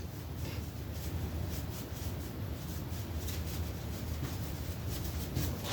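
Faint rustling and rubbing of tarot cards being handled, over a low steady hum.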